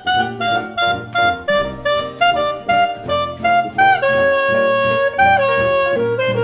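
Jazz-style instrumental music: a lead melody of short notes over a steady bass line, with a long held note about four seconds in.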